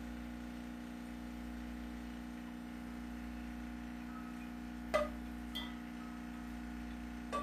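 Steady low electrical hum, with a light clink about five seconds in and two fainter ticks after it.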